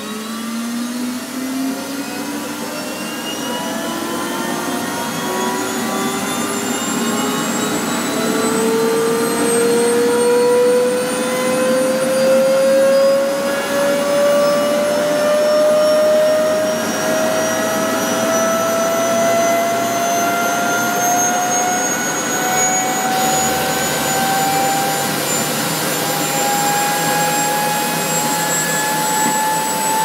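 Small Hoover vacuum cleaner's motor speeding up under ever-increasing supply voltage, its whine climbing steadily in pitch and getting louder throughout, with the rush of air over it. The motor is being overdriven well past its rating on the way to failure.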